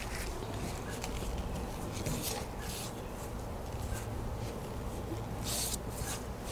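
A paintbrush stroking wet polyurethane paint onto a fiberglass canoe hull, with a few short swishes: two about two seconds in and two more near the end.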